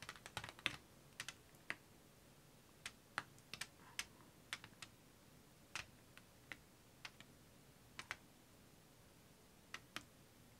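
Faint, irregular small ticks and taps, about one or two a second, from wet pouring paint dripping off the edge of the tilted canvas onto the covered table.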